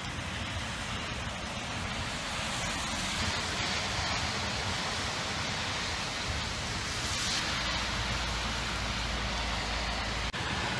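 Heavy rain pouring down steadily, a constant rushing sound with a short dropout near the end.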